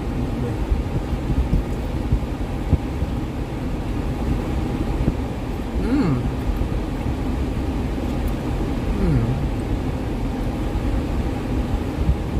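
Steady low rumble of a running vehicle, with two short falling hums from a voice about six and nine seconds in.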